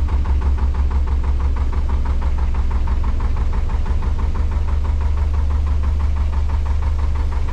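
Narrowboat's diesel engine running steadily, with a strong low throb and an even, rapid knocking beat.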